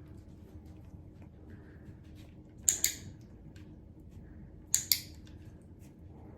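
Two sharp double clicks about two seconds apart, each a quick pair of clicks, over faint room noise.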